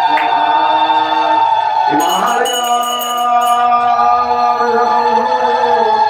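Hindu devotional music with singing: a chant-like melody on long, steadily held notes.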